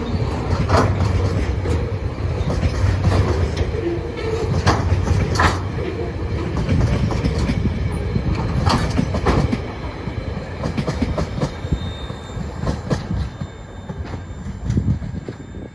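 Loaded log wagons of a freight train rolling past, their wheels clacking over the rail joints above a steady rumble. The sound fades over the last few seconds as the end of the train moves away.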